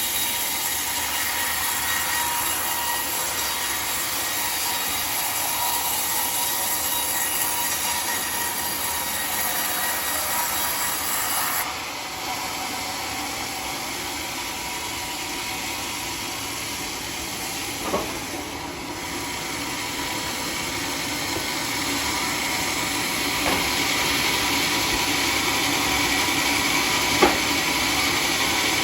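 Homemade sawmill's circular saw blade running through a teak log with a steady, noisy cut. The sound changes about twelve seconds in, and two short knocks come later, one past the middle and one near the end.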